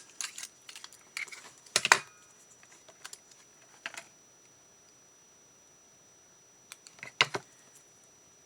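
Scattered sharp clicks and taps from cardstock and paper-craft tools being handled on a work table. There is a group of them in the first two seconds, single ones a little later, quiet for a few seconds, then another group near the end.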